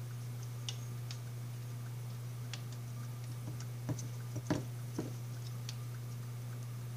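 Small scattered clicks and taps of a solar light's plastic parts and thin wires being handled and pushed into its housing, with a few sharper clicks near the middle, over a steady low hum.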